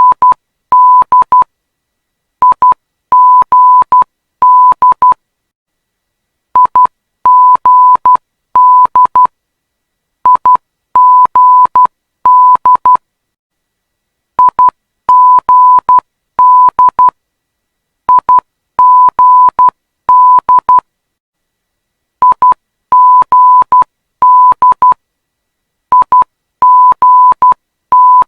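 Morse code ident of the Perth ILS-Y / LOC-Y runway 21 localizer: a single steady high beep keyed on and off in dots and dashes. The same short group of letters repeats about every four seconds, with a brief silence between groups.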